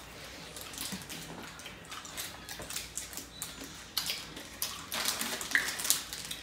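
Small plastic candy wrappers crinkling as hard candies are unwrapped, with wet sucking sounds of the candies in mouths. The crinkling crackles are thickest and loudest a little past the middle.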